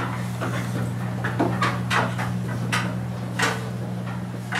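Classroom room noise: a steady low hum with scattered small knocks and rustles.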